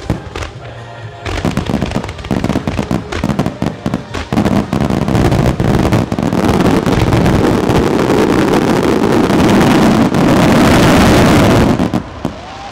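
Starmine fireworks fired at close range: a quick run of separate shell bangs gives way to a rapid barrage that thickens into a continuous rumble of bursts and crackle. It is loudest near the end and cuts off suddenly about a second before the end.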